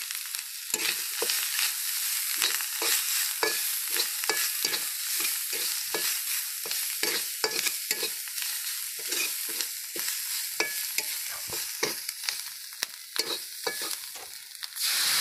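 Snail pieces frying with spices in a steel kadai, a steady sizzle, while a spatula stirs and scrapes against the pan a few times a second. The sizzle grows louder near the end.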